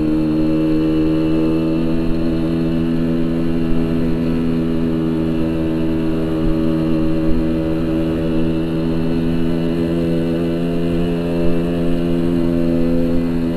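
Yamaha RX-King 135cc two-stroke single-cylinder motorcycle engine with a Boban aftermarket exhaust, running at steady revs while riding. The note holds at one even pitch with no revving.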